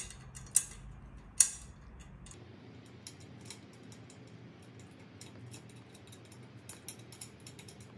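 Light clicks and taps from the plastic connector pieces and metal rails of an IKEA MULIG drying rack being handled and fitted together. There are three sharp clicks in the first second and a half, the third the loudest, then a run of small ticks that grows thicker near the end.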